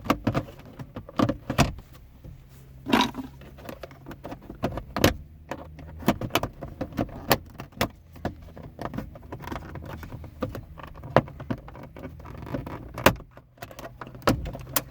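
Plastic dashboard trim panel under the steering wheel of a 2006 Honda CR-V being worked loose and pulled out: many irregular clicks, knocks and rattles of plastic, over a low steady hum.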